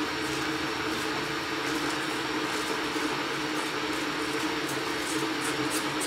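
A pot of gungo peas at a rolling boil on the stove, a steady rushing hum with faint pops, as washed rice is tipped in from a mesh strainer.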